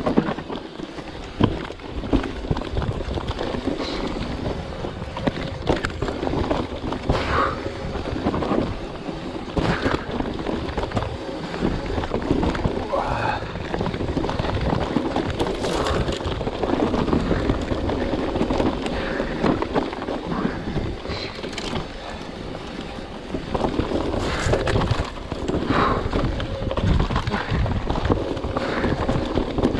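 Mountain bike riding down a trail: wind buffeting the microphone over the steady rumble of tyres on dirt, with frequent knocks and rattles as the bike hits bumps.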